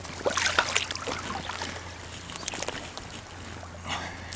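Shallow water sloshing and splashing around a person wading and moving his arms through it, in a few short splashes, the biggest near the end as he reaches down into the water.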